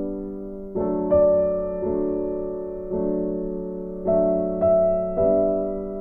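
Background music: slow, gentle electric-piano chords, each struck and left to fade.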